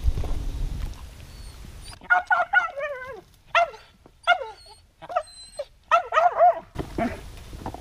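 A dog whining: a string of high, wavering whines that slide down in pitch, starting about two seconds in and stopping shortly before the end.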